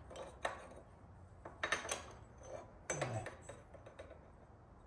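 Light metallic clinks and clatters of small metal parts or tools being handled, in three short clusters about a second apart, the last with a dull knock.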